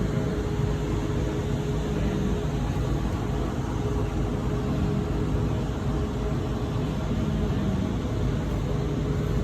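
Steady outdoor background noise: an even low rumble with a faint, constant hum running under it.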